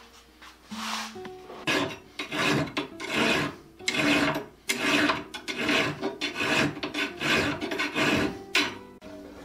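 Hand file stroking across a 2-inch auger bit clamped in a bench vise, sharpening the dull bit. The rasping strokes come at about one and a half a second, starting about two seconds in.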